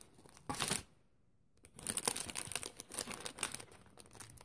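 Plastic snack wrappers crinkling as packets are handled and pulled out of a box. There is a short rustle about half a second in, a brief pause, then steady crinkling from just under two seconds on.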